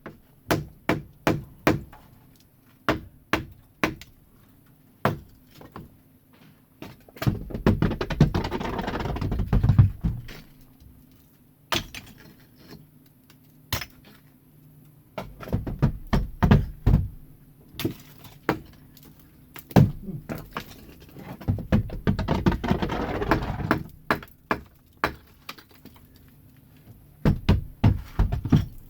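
Hand demolition work on a roof: a run of irregular sharp knocks and hammer blows. Twice there is a longer stretch of rough scraping and clattering between the blows.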